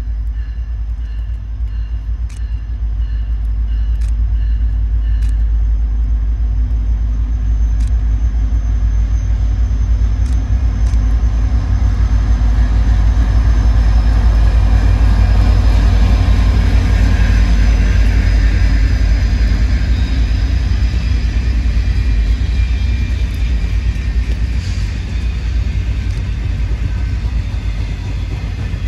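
Passenger train led by EMD F40 diesel locomotives, with 16-cylinder two-stroke engines, approaching and passing at speed. The low rumble of engines and wheels grows to its loudest as the locomotives go by about halfway through, then eases to the steady rolling of the passenger cars running past.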